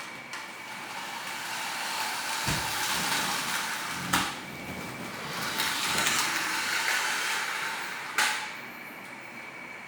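Remote-control toy car's small electric motor whirring in two spells, with sharp knocks about four seconds in and again near the end.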